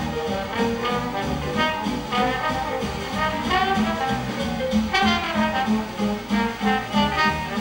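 Trombone solo in a Dixieland jazz band, the horn sliding between some notes, with the band's rhythm section keeping a steady beat underneath.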